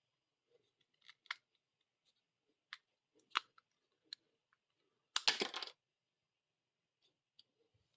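Hard plastic action figure being handled: a handful of sharp clicks, then a louder clatter lasting about half a second some five seconds in.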